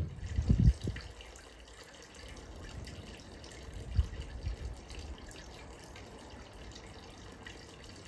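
Water from a stone lion-head wall spout splashing steadily into a half-barrel pond. A couple of short low bumps come about half a second in and again about four seconds in.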